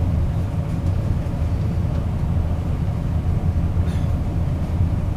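Passenger train running, heard from inside the car: a steady low rumble of wheels and motors on the track, with one faint click about four seconds in.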